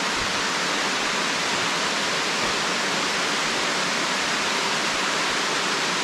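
Steady hiss of falling rain, even and unbroken.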